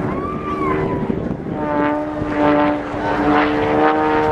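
Extra 300S aerobatic plane's propeller engine droning steadily, its pitch sliding slowly up and down as it manoeuvres.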